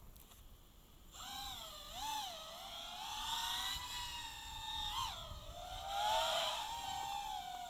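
FPV quadcopter's motors and propellers whining, starting about a second in, the pitch swooping up and down with the throttle.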